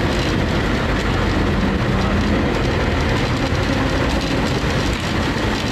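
Non-AC bus driving along a town street, heard from inside the cabin: a steady engine drone mixed with road and body noise.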